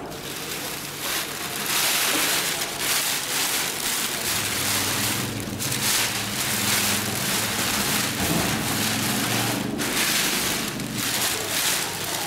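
Large white sailcloth rustling and crinkling as it is dragged and bunched by hand, dropping out briefly twice, over a faint low steady hum.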